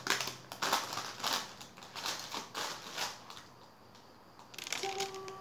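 Baking paper crinkling and rustling in irregular bursts as it is peeled off a baked cake. A steady held note comes in about five seconds in.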